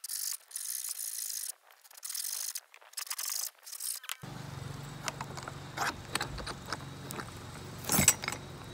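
Hacksaw cutting a metal shelf standard with a run of rough back-and-forth strokes that stops after about four seconds. After that come light clicks as the cut piece is handled, with one sharp knock near the end.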